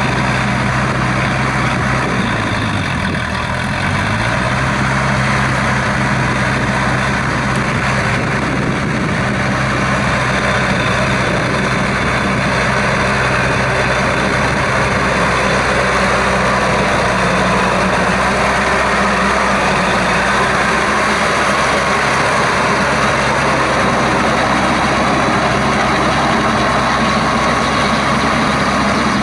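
Shibaura V52F Stiger tractor's 52 hp four-cylinder engine running steadily under load while pulling a rotary tiller through wet paddy mud. The engine note dips briefly about three seconds in and then recovers.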